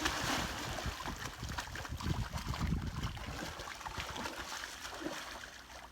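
Lake water splashing and sloshing as a person swims close to the microphone, with a low rumble underneath; it eases off toward the end.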